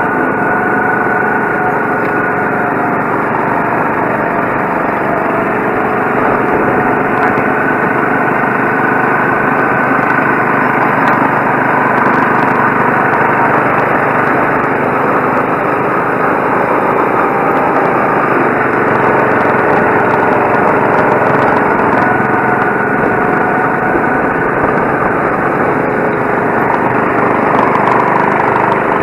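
Go-kart's small engine running steadily under way, heard from on board, its pitch wavering a little as the kart laps the track.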